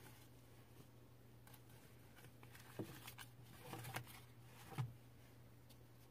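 Faint handling noise: a few short soft knocks and rustles, about three seconds, four seconds and five seconds in, as doll bedding and small doll accessories are moved by hand, over a low steady hum.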